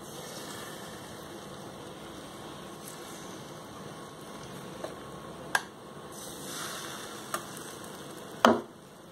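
A steel ladle clinking four times as batter is ladled onto a waffle maker plate, the sharpest clink near the end, over a faint steady hiss.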